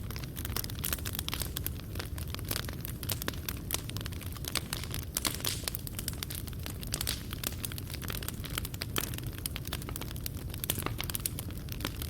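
Wood fire in a fireplace burning steadily, with dense, irregular crackles and pops of burning wood and coals over a low rumble of flame.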